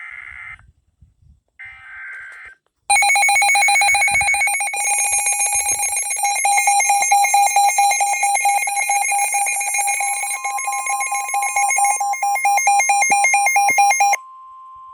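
Two short bursts of the SAME digital alert header, then, about three seconds in, a weather alert radio's built-in alarm: a loud, rapidly pulsing electronic beeping. It cuts off suddenly near the end, leaving the steady NOAA Weather Radio 1050 Hz warning tone that signals a warning is about to be read.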